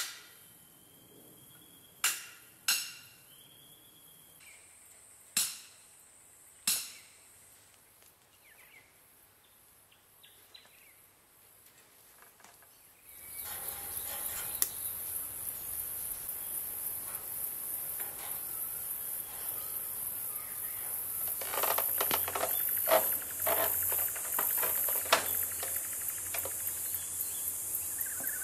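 Steel star picket being driven into the ground: about five sharp metal clanks over the first seven seconds, each ringing briefly. From about halfway, a steady high insect buzz, with rattling and clicking as fencing wire is twisted onto a post with pliers.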